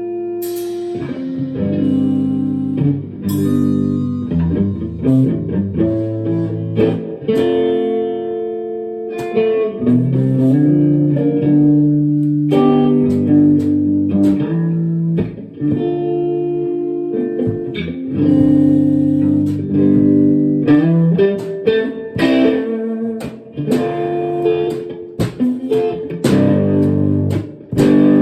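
A band playing an instrumental guitar passage: electric guitar chords and picked notes over bass guitar, changing every second or so, with no singing.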